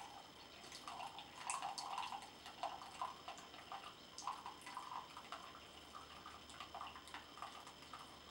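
Tea pouring from a glass teapot into a glass mug in a thin, quiet, uneven trickle, with a few light ticks.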